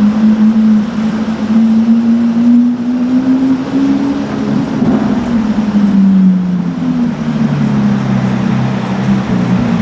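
Car engine running at low revs, its pitch rising slowly for about four seconds, dropping, then settling lower near the end.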